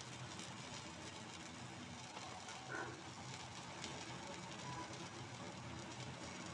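Faint, steady sizzle of a sprouts-and-gram-flour cheela cooking in an oiled non-stick pan.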